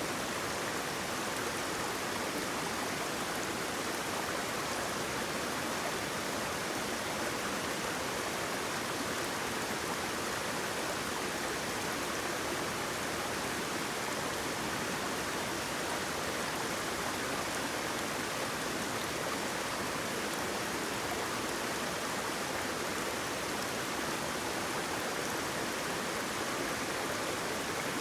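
Flowing water running in a steady, even rush that does not change.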